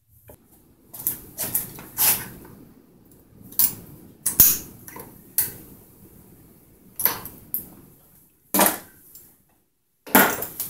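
Metal parts of a chainsaw engine and hand tools clinking and knocking as the engine is taken apart: about a dozen separate sharp clanks, irregularly spaced.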